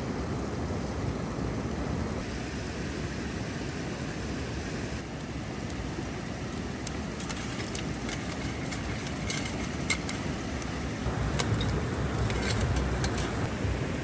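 Steady rush of a small river weir. From about halfway through, hot charcoal crackles and spits as water is poured onto it to put the fire out, sending up steam, and the rush grows louder near the end.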